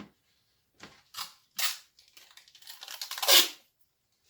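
Thick plastic film and cardboard being cut along marked lines: several short rasping cuts and crinkles, then a longer cut that builds to the loudest rasp near the end.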